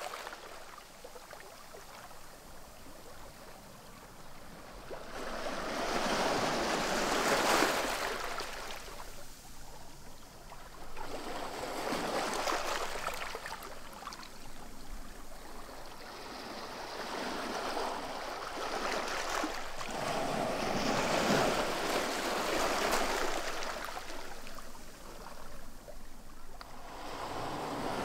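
Sea lapping at the foot of a lifeboat launch ramp on a pebble shore: faint for the first few seconds, then small waves washing in one after another, each a rush of water that swells and falls away over a couple of seconds.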